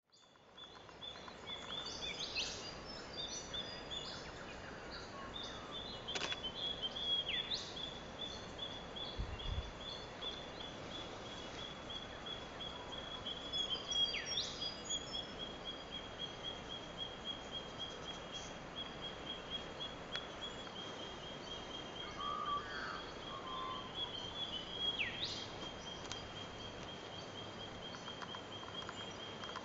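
Australian bush birds calling: short, sharp calls sweeping steeply down in pitch every few seconds, over a continuous high, rapid trill and a steady background hiss. The sound fades in from silence at the start.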